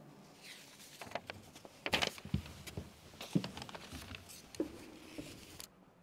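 Scattered irregular footsteps, light knocks and rustles of someone leaving the pulpit, breaking off abruptly near the end.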